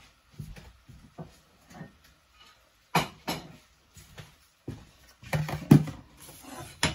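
Kitchen clatter of dishes and utensils: irregular knocks and clinks as things are handled and set down, with the sharpest knocks about three seconds in and just before the end.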